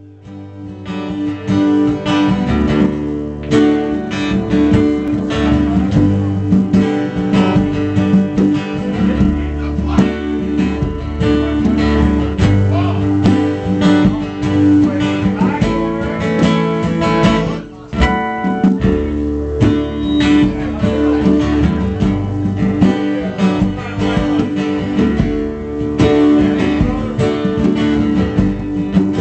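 Country band playing, led by strummed acoustic guitar over a steady bass line; the music drops briefly about two-thirds of the way through, then comes back in.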